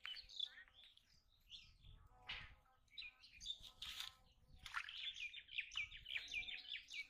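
Small birds chirping and calling, with a quick run of short repeated notes near the end.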